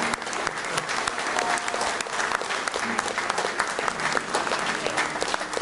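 A small group of people applauding, with steady hand clapping.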